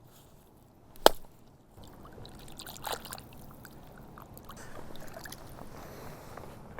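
A single sharp knock about a second in, then steady water sloshing and trickling with small scattered rustles.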